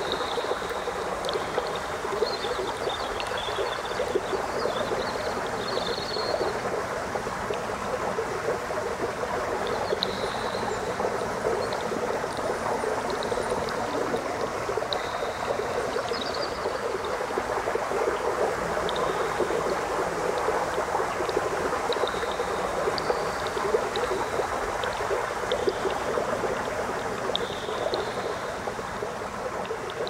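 Small rocky forest stream rushing and splashing over boulders in a steady flow, with short high chirps now and then.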